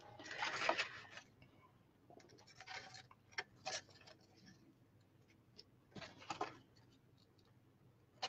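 Soft scratching and rustling of card stock being handled and a glue applicator worked across it, in a few short bursts with small sharp clicks between, the longest about half a second to a second long. The glue tool sounds as if it is running low, so that another one will be needed.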